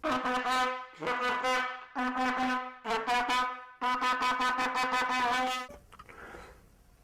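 A brass instrument mouthpiece blown into a length of vinyl tubing, sounding five short brassy, trumpet-like notes, mostly on the same pitch, the fifth held longest. The tubing makes the mouthpiece buzz resonate on a set note.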